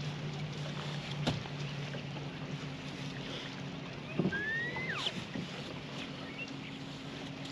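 Steady low electric hum of a boat motor that steps up to a higher pitch partway through, over an even hiss of rain and wind. There is a sharp click about a second in, and a short squeak that rises then falls near the middle.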